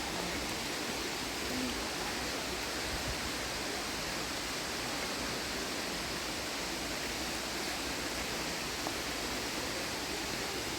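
Steady rush of falling water from a waterfall, an even wash of noise with no breaks.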